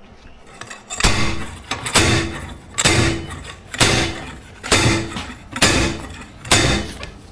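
Seven evenly spaced metal-on-metal hits, about one a second, each ringing briefly. They come from a manual bead-breaker tool being struck to push a trailer tire's bead off the rim.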